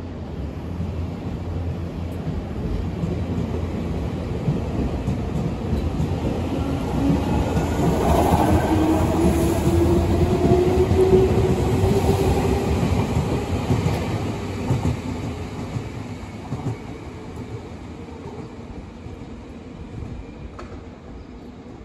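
Nankai Koya Line electric train going by: a low rumble and clatter that grows louder to a peak about halfway through, then fades away. A whine rises in pitch near the middle.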